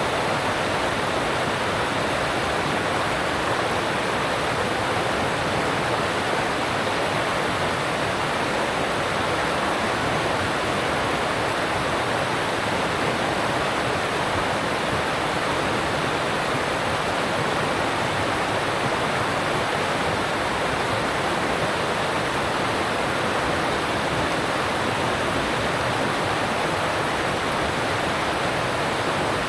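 Alpine stream rushing over rocks: a steady, unbroken water rush.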